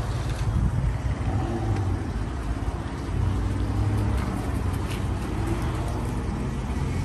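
Pickup truck's engine running close by, a steady low rumble.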